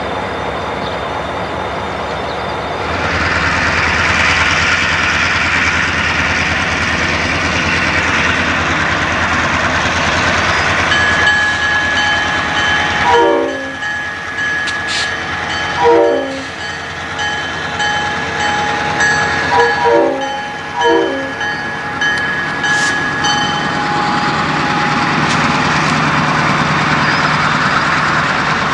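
Grand Trunk Western diesel freight locomotives running with a steady low engine rumble as freight cars roll past. For about twelve seconds in the middle a steady high-pitched tone rings over it, with a few short falling tones and clicks.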